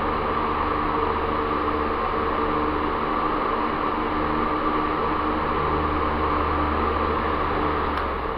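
Air King 9214GT high-velocity floor fan running steadily: an even rush of air over a low motor hum. Near the end there is a single click, after which the motor hum drops away and the sound begins to fade.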